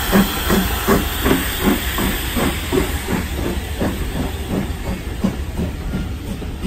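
Steam locomotive No. 2238 pulling away with a train: rhythmic exhaust chuffs, about two to three a second, over a steady hiss of steam. The beats quicken slightly and grow fainter as the engine passes and the coaches follow.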